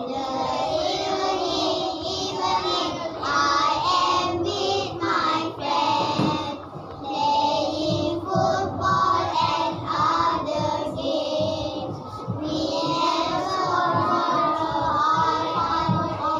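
A small group of schoolchildren singing a simple song together in chorus, with brief breaks between lines.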